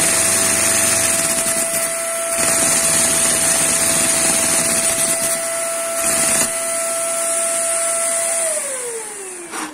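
Vacuum cleaner motor whining steadily while its suction drives a LEGO inline-two-cylinder vacuum engine, whose plastic pistons and valves clatter underneath. About eight and a half seconds in, the whine slides down in pitch and fades as the vacuum motor spins down.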